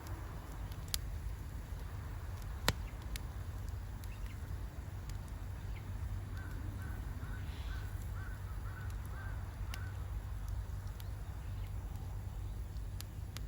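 Wood campfire crackling, with a few sharp pops over a steady low rumble. In the middle a bird calls about eight times in a quick, even series.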